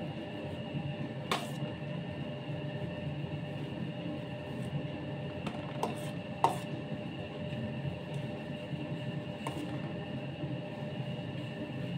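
A steady low hum with a few faint steady tones over it, broken by a handful of light clicks and taps. The sharpest tap comes about six and a half seconds in, as the palette knife and cake turntable are handled while whipped cream is spread on the cake.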